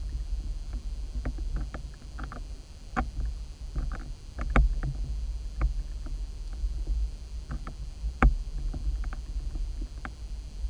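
Underwater sound picked up by a camera's microphone in its housing on a canal bed: a steady low rumble of water with irregular sharp clicks and ticks, the loudest about four and a half and eight seconds in.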